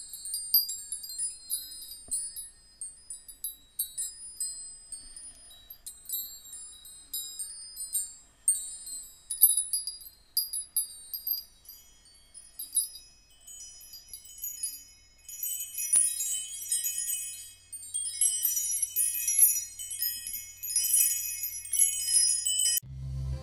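High, tinkling chimes: many short ringing notes scattered irregularly, growing denser toward the end. A music track with a deep bass comes in just before the end.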